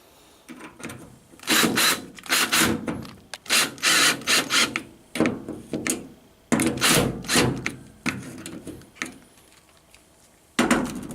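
A run of irregular knocks, clatters and scraping from hands and tools working a clip back onto a washing machine's suspension spring inside the cabinet, in bursts with short pauses, one more knock near the end.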